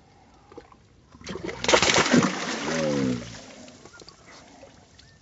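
Bass splashing in shallow pond water as it is released from the hand and kicks free: a sudden splash about a second in, lasting about two seconds.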